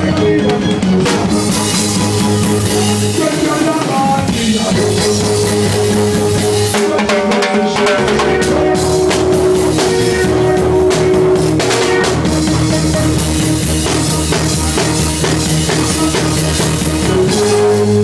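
A live band playing, led by a drum kit with snare, bass drum and cymbals, over held low notes, heard close to the drums.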